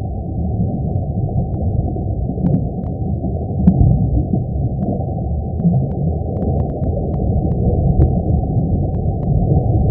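A 'sound of the Sun' effect: a continuous deep rumbling roar held entirely in the low range, with faint scattered crackles above it.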